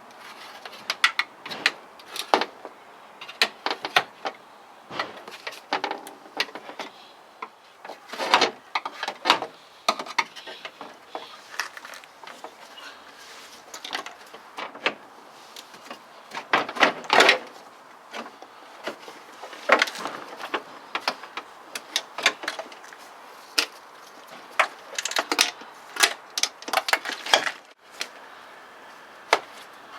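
Screwdriver and hand tools working on a VW Golf Mk4 door: irregular clicks, knocks and scrapes of metal and plastic as a part held in with mastic is pried out.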